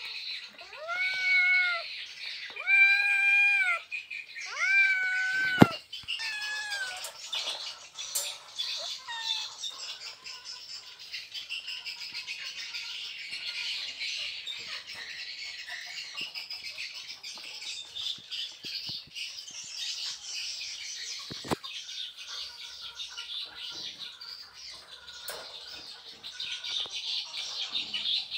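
Domestic cat yowling to mate: three long, drawn-out calls in the first six seconds, each rising and falling, then two fainter ones. After that a steady high-pitched background chorus continues, with a couple of sharp clicks.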